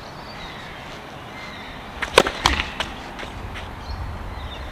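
A tennis serve: a sharp pop of racket strings hitting the ball about two seconds in, with a second crack just after and a few fainter knocks.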